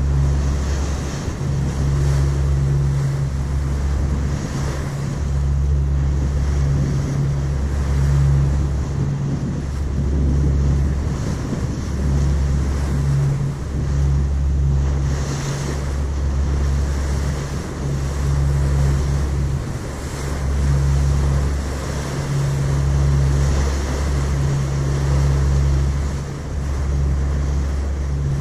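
Wind buffeting the microphone in irregular gusts over the steady rush of the sea along the hull of a moving passenger ferry, with a low rumble underneath.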